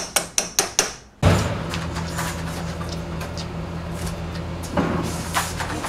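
A metal spoon clicking against a saucepan while stirring sauce, about five knocks a second, stopping abruptly about a second in. Then a steady low hum, with a single knock near the end.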